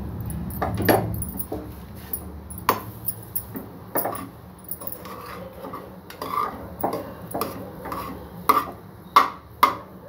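Metal ladle stirring cooked rice in a metal pot, with irregular clinks and knocks as it strikes the pot's sides and bottom while the coconut tempering is mixed in.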